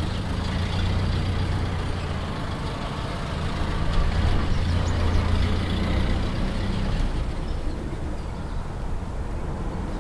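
1929 Ford truck's four-cylinder engine running as the truck drives, a steady low hum with road rumble. It grows louder from about four seconds in, then eases back after about seven seconds.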